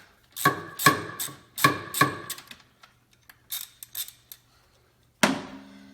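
Metal hand wrench clicking and clinking on a nut on the alternator: a string of separate sharp metallic clicks, each with a short ring, fainter in the middle, with one louder clink near the end.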